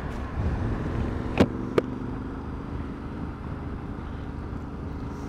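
Yamaha Ténéré 700's parallel-twin engine running as the motorcycle rides along, with two sharp clicks about a second and a half in.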